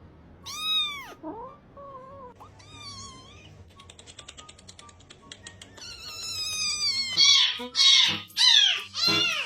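Cats meowing: a few separate high, arching meows, then several loud overlapping meows packed together in the last few seconds. A quick, even run of faint clicks sits between them in the middle.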